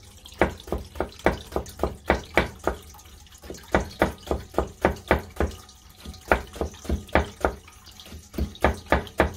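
Usuba knife slicing a rolled sheet of daikon into fine tsuma strips on a cutting board: quick, even cuts, about three to four a second, with a couple of brief pauses. These are the crisp 'saku-saku' strokes that the cook says mark a clean cut, rather than the knife clacking on the board.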